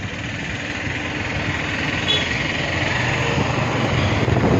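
Two-wheeler engine running steadily while riding, heard from the pillion seat, with a continuous rush of moving air and road noise. It grows a little louder toward the end.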